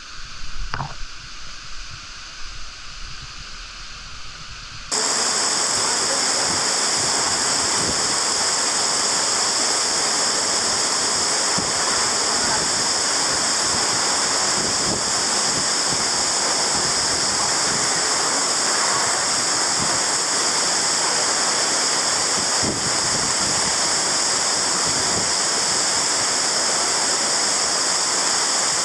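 Waterfall: a loud, steady rush of falling water in a canyon, starting abruptly about five seconds in. Before it, a quieter low rumble of wind with a brief click.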